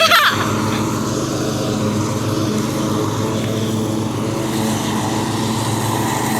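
Craftsman riding lawn mower engine running steadily under mowing load.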